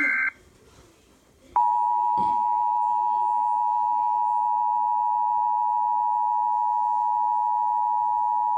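Emergency Alert System broadcast: a digital header burst cuts off right at the start, then after a short gap the EAS attention signal begins, two steady tones sounded together (853 Hz and 960 Hz) holding unchanged. This is the tone alert of a national periodic test.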